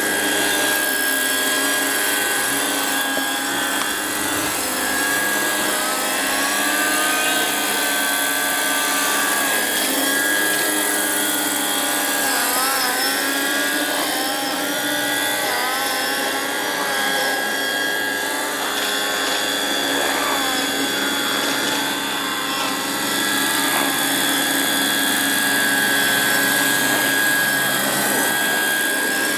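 Electric-powered RC scale model of a Piasecki H-21 tandem-rotor helicopter flying: a steady high whine from the electric drive with the whir of its two rotors, the pitch wavering now and then as it manoeuvres.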